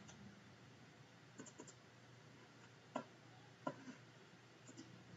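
Near silence with a few faint computer mouse clicks: a small cluster about a second and a half in, two sharper single clicks at about three and three and a half seconds, and a light pair near the end.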